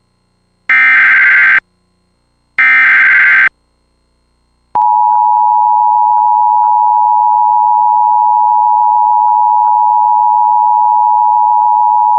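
Emergency Alert System SAME header: two short bursts of buzzy digital data tones about a second apart, the last of the three header bursts. After a second of silence comes a long, steady EAS attention tone announcing the flash flood warning.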